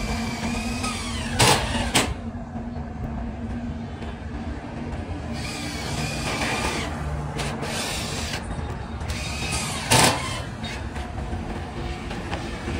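Steady low mechanical rumble with a hum, broken by three sharp knocks: two close together in the first couple of seconds and one more about ten seconds in.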